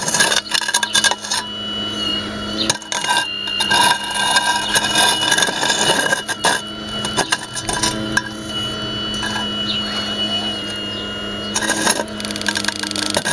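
Radio-controlled Hitachi 870 excavator model at work: the steady whine of its drive motors, stopping and starting as it moves, over the metal bucket scraping and clinking through gravel and broken concrete.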